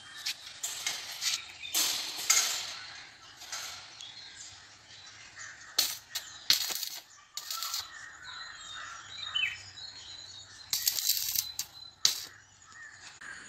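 Irregular metal knocks and clatter from working on a steel-framed wire-mesh cage by hand, with the loudest strikes about two seconds in, around six to seven seconds, and near eleven to twelve seconds.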